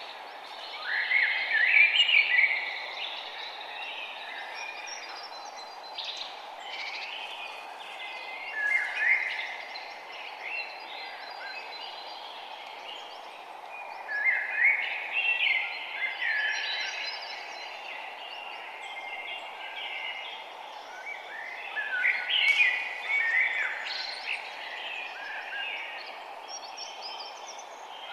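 Forest birds singing in short bursts of quick chirping phrases, one every few seconds, over a steady background hiss.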